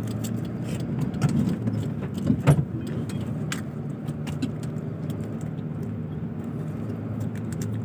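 Fuel tanker truck's engine running steadily, heard inside the cab, with scattered light rattles and clicks from the cab, the sharpest about two and a half seconds in.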